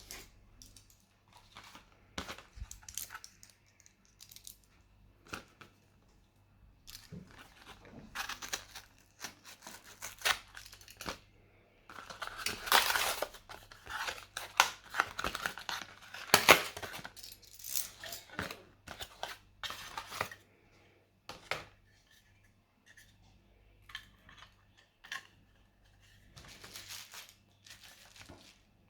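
Hands working on laptop parts: irregular clicks, scrapes and rustling, busiest and loudest from about 12 to 17 seconds in.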